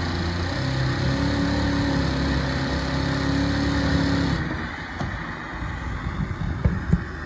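New-Tech FD-62G-06MS six-thread flat seam sewing machine stitching at speed, driven by its direct-drive servo motor. It runs with a steady, even hum that stops suddenly about four and a half seconds in, followed by a few light clicks.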